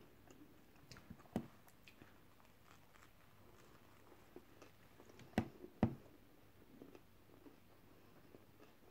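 Quiet mouth sounds of a person biting into and chewing a soft Subway sub bite, with scattered small clicks. The two loudest clicks come about half a second apart, a little past halfway.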